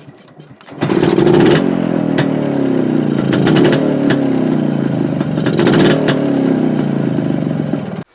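Yezdi two-stroke motorcycle engine running and being revved, its pitch rising and falling. It starts abruptly about a second in and cuts off suddenly just before the end.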